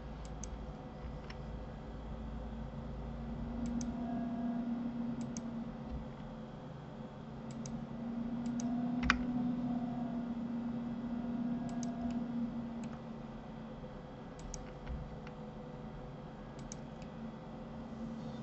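Clicks of a computer mouse and keyboard, mostly in quick pairs every second or two, with one sharper click about nine seconds in, over a low steady hum that swells twice.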